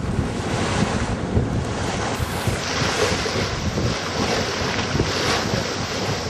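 Wind buffeting the microphone over water washing past the hull of a sailboat under way in strong wind, at a steady level.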